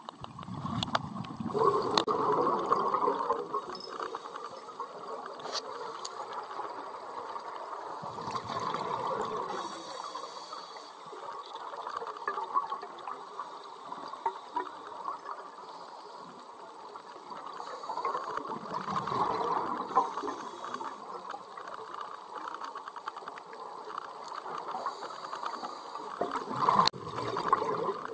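Scuba diver's exhaled breath bubbling out of a regulator underwater, in bursts roughly every eight seconds with a low wash of water between.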